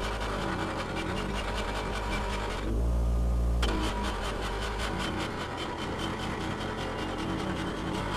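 Half-horsepower HYET 6-inch bench grinder/buffer motor running steadily with a rusty axe head pressed against its wheel, a scratchy grinding rub over the motor's hum. For about a second near the middle the grinding noise drops away, leaving a deeper hum.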